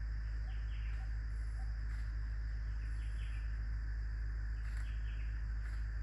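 Forest ambience: a steady insect drone with short bird chirps in twos and threes a few times, over a steady low rumble.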